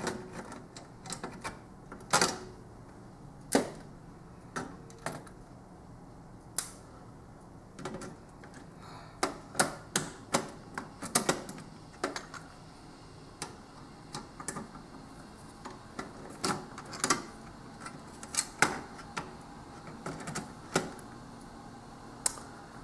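Scattered sharp clicks and taps, some in small clusters, from a screwdriver and needle-nose pliers working small screws out of an LCD TV's main circuit board and sheet-metal chassis.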